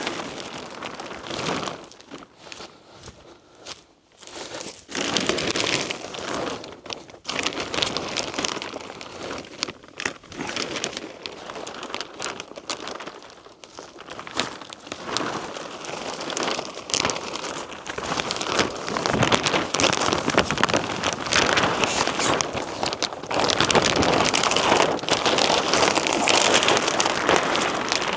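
Large sheet of greenhouse plastic film crinkling and crackling as it is handled, getting louder in the second half.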